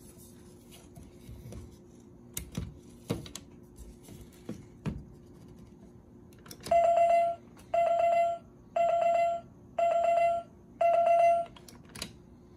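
Citizen Rhythm dolphin alarm clock's alarm going off: five short beeps of one steady pitch, about one a second, starting about halfway through. Before them come a few light clicks as the plastic clock is handled.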